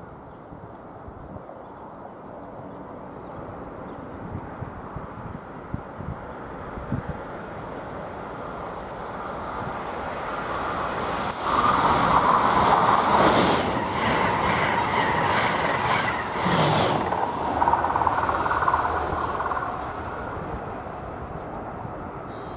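Electric passenger train on the Northeast Corridor approaching and passing at speed. Its sound builds for about ten seconds, turns sharply loud with a fast clatter of wheels over the rails as it goes by, then falls away near the end.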